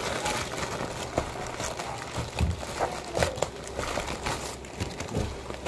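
Plastic courier mailer crinkling and rustling as it is handled and opened, with irregular crackles throughout.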